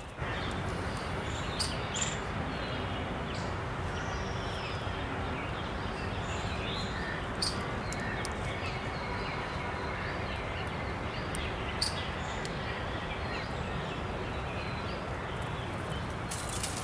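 Outdoor nature ambience: a steady rushing background noise with scattered faint bird chirps and a few sharp ticks.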